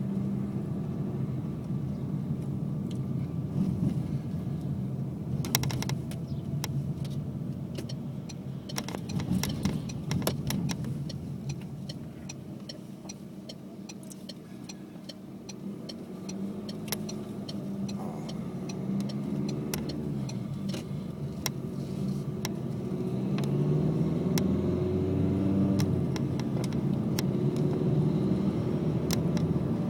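Car running, with repeated short sharp knocks and clicks over the steady engine hum, the knocking the car is being recorded for. In the later part the engine note rises and falls and gets louder.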